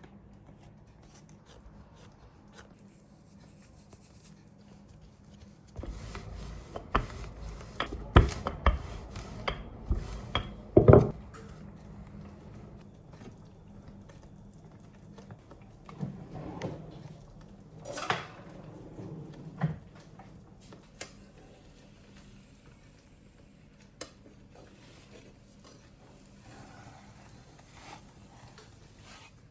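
Dishes and cutlery being handled, with sharp clinks and knocks. They come in a busy run about a fifth of the way in, a few more follow about halfway through, and then only the odd tick.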